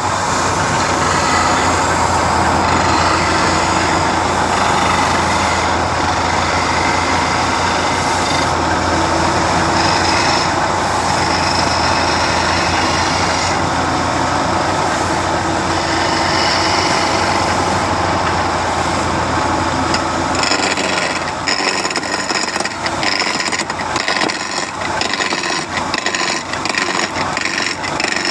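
A woodworking machine running with a steady low hum. About two-thirds of the way through, the hum drops away and the sound turns uneven and choppy, with many short knocks.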